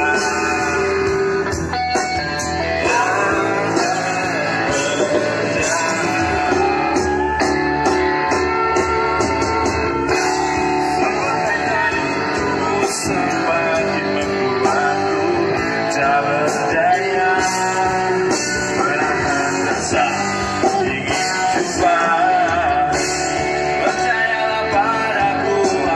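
Live pop-rock band playing through PA speakers: electric guitars and a drum kit, with singing.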